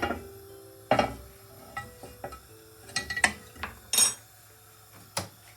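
A non-stick frying pan and kitchen utensils knocking and clinking, about eight separate knocks at irregular intervals, the sharpest about four seconds in.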